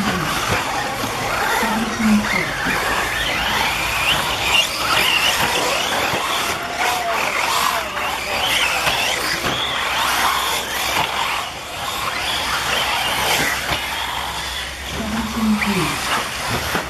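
Electric 1/8-scale RC off-road buggies racing, their motors whining high and rising and falling in pitch constantly as the throttle opens and closes.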